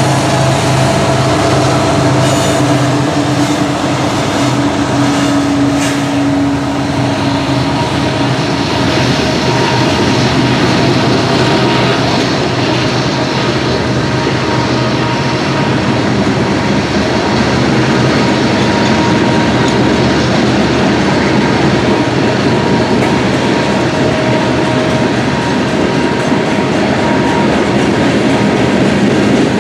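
Freight train passing: the diesel engines of the trailing Norfolk Southern locomotives run loudly at first and fade over the first several seconds, leaving the steady rumble and clatter of loaded freight car wheels rolling over the rails.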